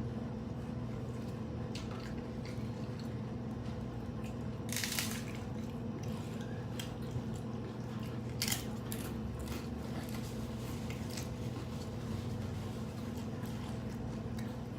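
Close-up eating sounds: a few scattered crunches and wet, squishy bites and chewing of crunchy tacos, over a steady electrical hum.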